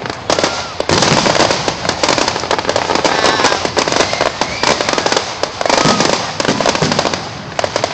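Fireworks display: a dense, continuous run of crackling bursts and bangs from many shells going off in quick succession.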